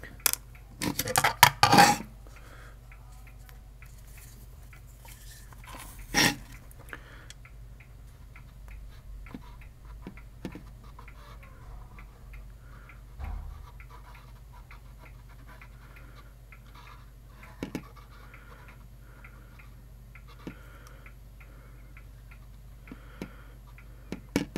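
Handling noise from an induction hob's circuit board being shifted on a wooden desk: a quick run of loud clatters in the first two seconds and a single sharp knock about six seconds in. After that there are only faint small clicks and rustles as thermal paste is put onto the board's power parts, with a steady low hum underneath.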